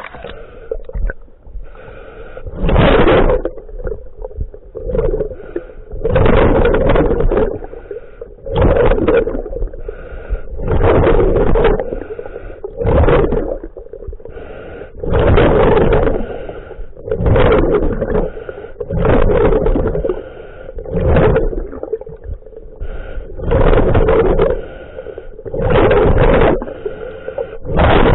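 Scuba diver breathing through a regulator underwater: loud rushes of exhaled bubbles come about every two seconds, with a quieter hiss between them.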